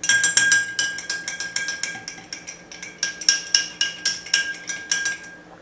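Long metal bar spoon stirring ice cubes in a tall glass: quick, irregular clinks of spoon and ice against the glass, each with a short glassy ring. The clinks stop shortly before the end.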